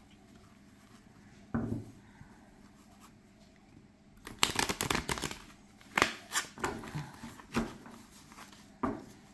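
A deck of thin oracle cards being riffle-shuffled. There is a single soft thump about a second and a half in, then a quick flurry of card flicks a little past four seconds, followed by several separate sharp taps as the deck is knocked square.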